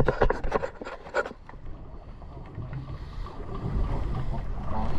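Wind buffeting the microphone and water sloshing around a boat's hull make a steady low rumble. A quick run of sharp clicks and knocks comes in the first second or so.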